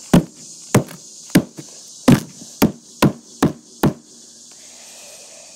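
Claw hammer striking a box, eight quick sharp blows in about four seconds, then it stops.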